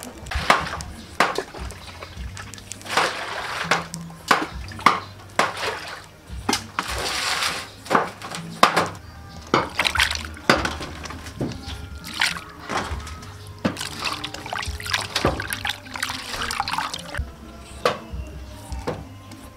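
Raw octopus being washed by hand in a stainless steel bowl of water: repeated sloshing and splashing with scattered sharp clicks and knocks, over background music.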